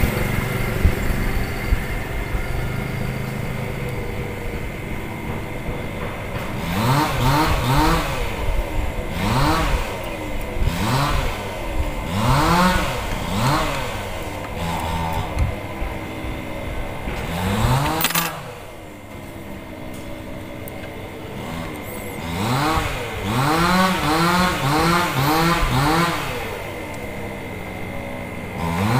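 A small engine revving up and falling back again and again, about once a second, in two spells with a few seconds' lull between.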